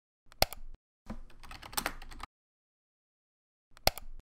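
Typing on a computer keyboard and clicking a mouse: a sharp click, a short run of rapid key clatter, a pause of silence, then another sharp click near the end.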